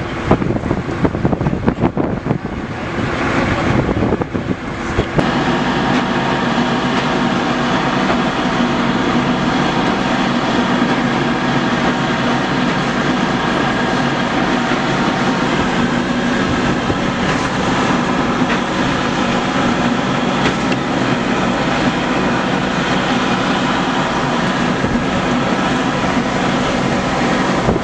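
Fire ladder truck's engine running steadily at a constant speed, as it does while the aerial ladder is raised. For the first few seconds wind buffets the microphone.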